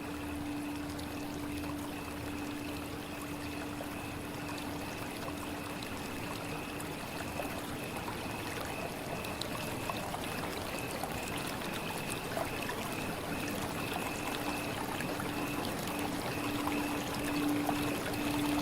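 Running water: a steady stream trickling and pouring, with two faint steady tones held underneath it.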